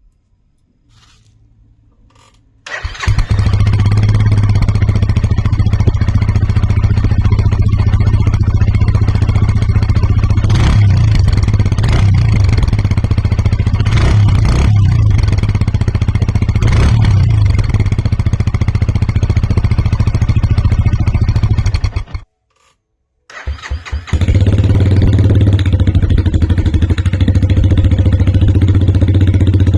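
MUTT motorcycle engine breathing through a MUTT aftermarket silencer: it starts about three seconds in and runs steadily at idle with a strong low exhaust note. The sound cuts off suddenly about twenty-two seconds in, and the engine starts and runs again a second or so later.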